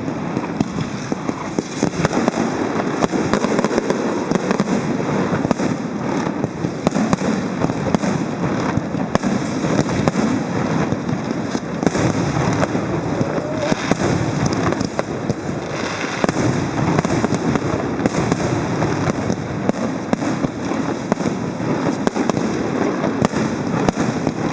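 Aerial fireworks display bursting in quick succession: a dense, unbroken run of bangs and crackles.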